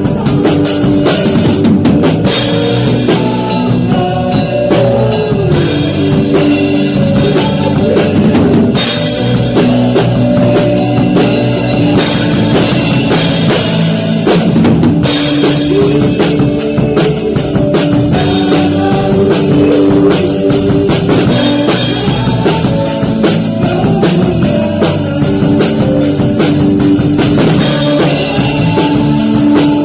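Acoustic drum kit played with a live worship band of keyboard, electric guitar and bass guitar.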